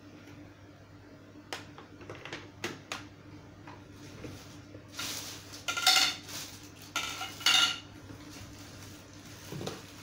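Clattering and clinking of vacuum cleaner parts and accessories being handled and knocked together: a few light knocks, then two louder bursts of rattling clinks about five and seven seconds in.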